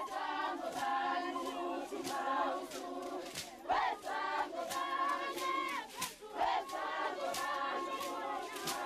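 A large group of young Zulu women singing and chanting together, with sharp beats about twice a second.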